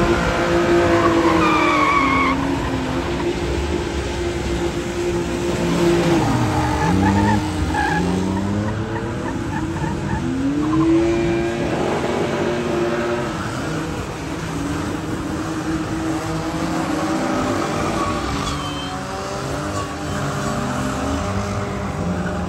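Drift cars, BMW 3 Series saloons among them, sliding sideways with tyres squealing and scrubbing. The engines are held at high revs at first, then rise and fall over and over as the drivers work the throttle.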